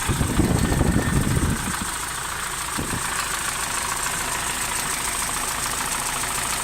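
UMZ-4216 four-cylinder petrol engine idling with a steady, rhythmic knock, the engine knock that the recording was made to capture. A heavier low rumble swells in the first second and a half and briefly again about three seconds in.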